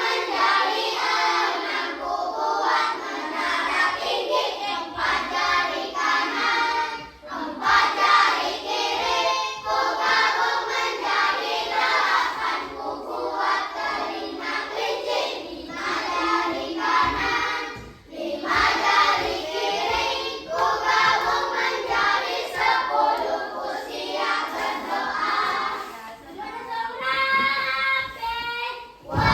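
A group of children singing together, with a few short breaks between phrases.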